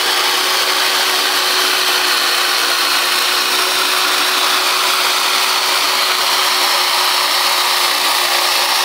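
Electric hedge trimmer running steadily, a constant motor whine with one held tone, as its reciprocating blades cut the spent flower stalks off a lavender bush.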